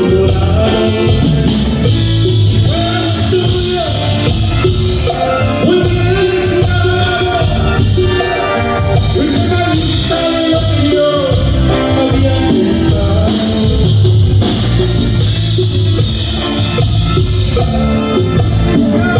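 Live Tejano band playing an instrumental passage, with a melody line over steady bass and drum-kit beats.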